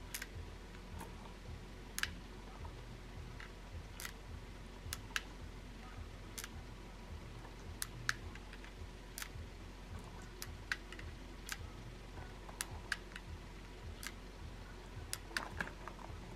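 Nagant revolver being loaded with 7.62 Nagant cartridges: faint, sharp metallic clicks at an uneven pace of roughly one a second as rounds are pushed through the loading gate and the cylinder is turned by hand between them.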